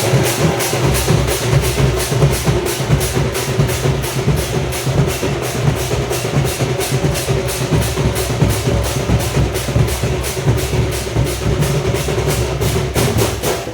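Ghanta badya ensemble playing: brass gongs struck in a fast, even beat of about four strokes a second over pounding drums, with a steady ringing tone held underneath. The playing stops abruptly at the very end.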